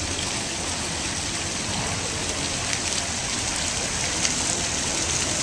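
Small tiered water fountain splashing steadily, a continuous hiss of falling water.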